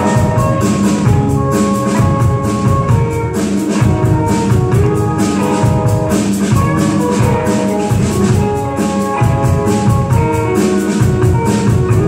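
Student rock band playing live: distorted electric guitars, bass and a drum kit keeping a steady beat, with a guitar melody moving over it.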